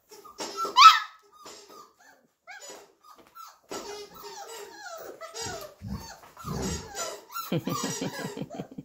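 27-day-old flat-coated retriever puppies vocalising in play. There is a sharp rising yelp about a second in, then a run of high, gliding whines and squeaks, and low growling grumbles near the end.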